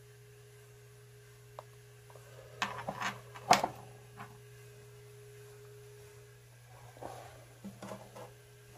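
Small steel lathe tools and tool bits clinking and knocking as they are handled and set down on a workbench: a cluster of sharp knocks about two and a half seconds in, the loudest about a second later, and a few lighter clinks near the end, over a steady low electrical hum.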